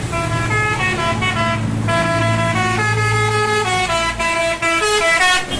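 Indonesian bus 'telolet basuri' musical air horn playing a quick melody of stepped notes over the low hum of the bus's engine. The tune breaks off briefly at the very end, then starts again.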